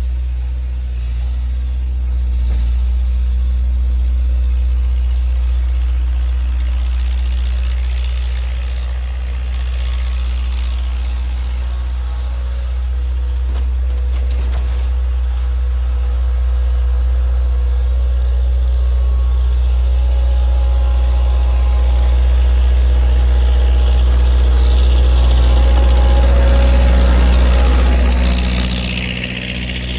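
A skid steer's swapped-in Cummins 3.3 four-cylinder diesel running with a steady low drone. It grows somewhat louder in the second half and dips briefly near the end.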